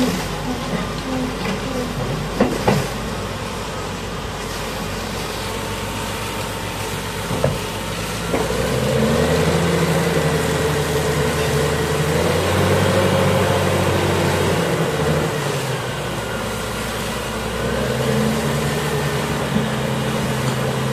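Heavy diesel engine running: a steady hiss with a few knocks at first, then about eight seconds in the engine note rises and strengthens with a wavering whine over it. It eases for a couple of seconds and builds again near the end.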